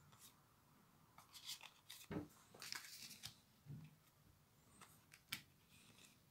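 Faint rustling and sliding of foil trading cards being shuffled between the fingers, with a few soft ticks as the cards' edges catch.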